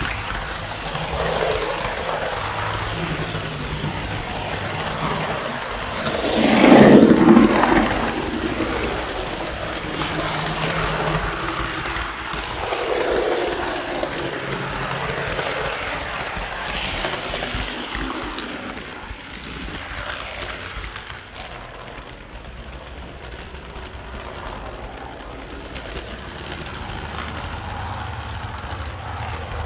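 Model train running on its track, heard close up from a car that carries the camera: a steady rolling rumble of wheels on rail with a low motor hum, swelling loudest about seven seconds in.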